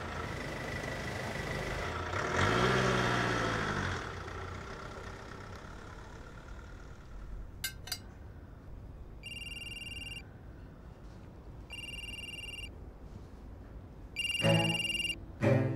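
Car engine revving up as the car pulls away. Then a mobile phone's electronic ringtone rings in one-second bursts, about every two and a half seconds.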